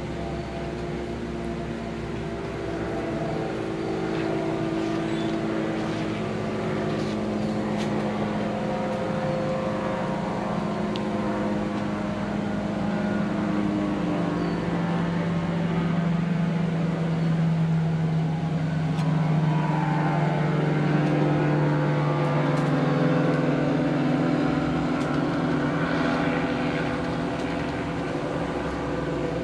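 A motor engine running steadily. Its pitch sinks around the middle and rises again near the end, with a few faint clicks over it.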